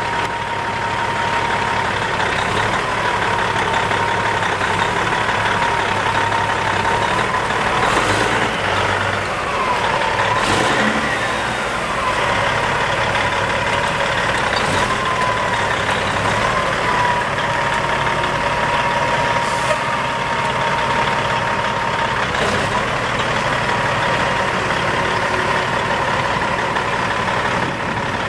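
Caterpillar 3406 inline-six diesel of a 1998 Peterbilt 379 idling steadily, with a steady high whine over the engine note. A few brief clicks sound through it.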